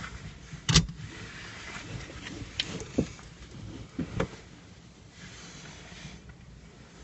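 A handful of sharp knocks and clicks, the loudest about a second in, over a faint hiss.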